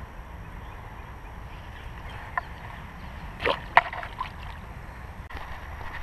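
A small largemouth bass released back into the pond, with a brief splash about three and a half seconds in, over a steady low rumble.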